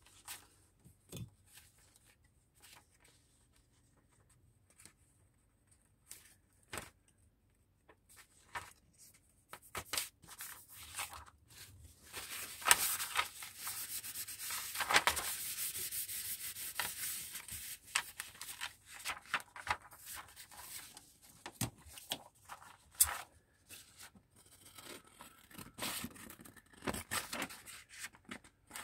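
Sheets of paper being handled on a cloth-covered table: scattered taps and paper rustles, with a longer stretch of continuous rubbing and rustling of paper about halfway through.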